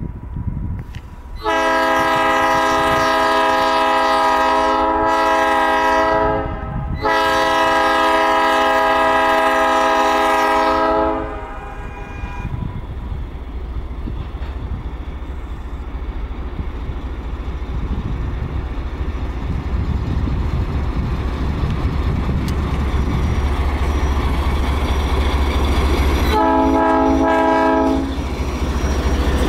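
GE B23-7 diesel locomotive sounding its horn for a grade crossing: two long blasts with a brief break between them, then its 12-cylinder diesel engine running with a low rumble that grows louder as it draws near, and a short horn blast near the end as it passes close by.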